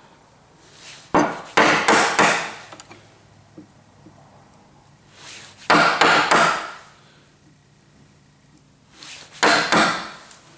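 Wooden mallet striking a chisel to chop waste out of a dovetail socket in wood: three bursts of a few quick blows each, a few seconds apart.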